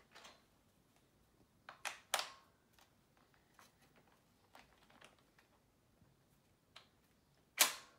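Scattered sharp clicks and knocks of Steadicam arm and sled hardware being handled and fitted together: a pair about two seconds in, a few faint ticks after, and the loudest click near the end.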